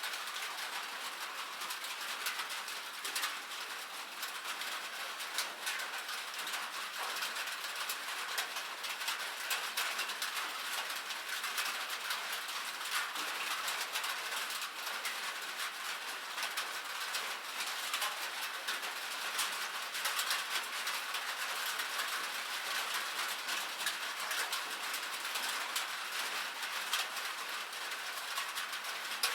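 Steady rain on a roof: a dense, even patter of many small drop ticks, heard from inside the cabin, with no thunder.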